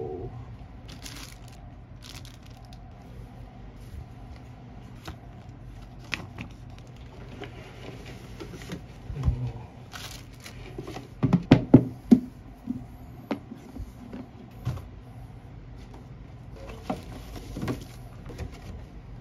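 Cardboard and plastic packaging being handled: lids and inserts lifted out, paper and plastic rustling, with scattered knocks. A cluster of louder knocks and thumps comes about nine to twelve seconds in.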